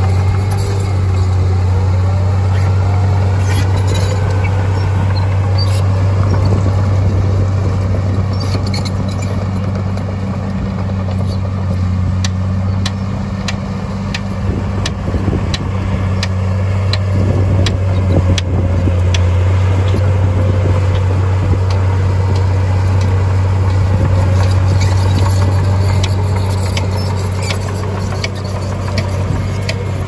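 Heavy diesel earthmoving machinery running steadily with a deep, constant drone, with many short sharp clicks and clanks through the middle.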